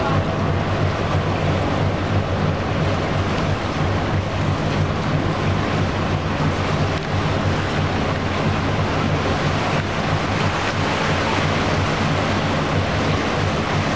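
Boat engine running with a steady low hum, under a constant rush of wind on the microphone and moving water.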